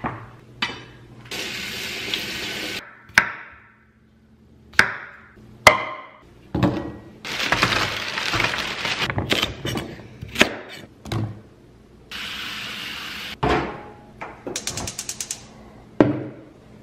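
Kitchen handling sounds: knocks of a wooden cutting board and containers on a stone countertop and a stretch of running water at the sink, with a quick run of clicks near the end.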